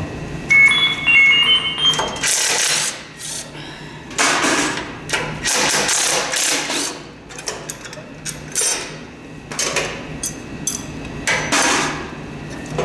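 Hammer blows on the metal of a Lawn-Boy ST524 snowblower being taken apart: about a dozen sharp strikes at an uneven pace, some in quick pairs.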